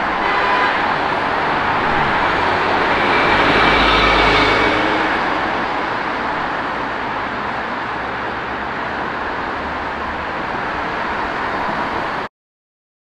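Road traffic on a multi-lane city street: a steady noise of cars passing. One vehicle swells louder and fades about four seconds in, and the sound cuts off abruptly near the end.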